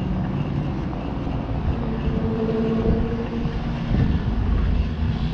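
Motorcycle engine running with a steady drone, its pitch shifting about two and four seconds in, over a low rush of wind on the microphone.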